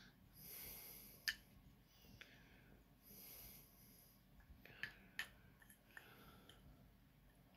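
Near silence, with soft breaths close to the microphone and a few light, sharp clicks, the loudest about a second in.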